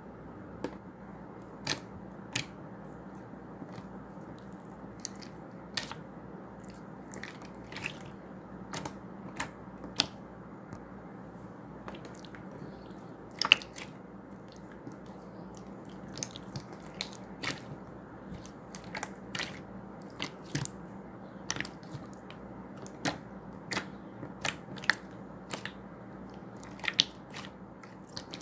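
Slime being handled: irregular sharp clicks and pops, one or two a second, as it is pressed, stretched and squished, over a steady low hum.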